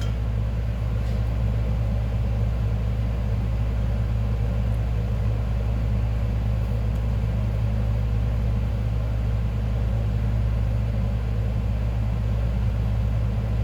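Steady low droning hum with a faint hiss over it, unchanging and without any distinct events.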